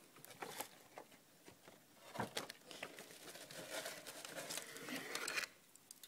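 Crinkling and rustling of a box of wood-wool fireplace firelighters being handled and opened. Scattered crackles and knocks at first, growing denser and louder in the second half, then stopping shortly before the end.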